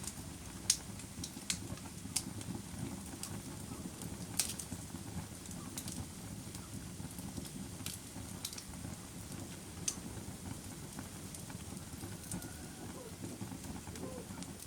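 Campfire burning and crackling: a steady low rush of flames with sharp pops and snaps of burning wood scattered through it, every second or two.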